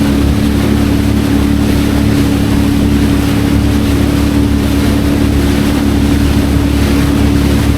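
Jet ski engine running at a steady pitch, under a constant rush of wind and water spray.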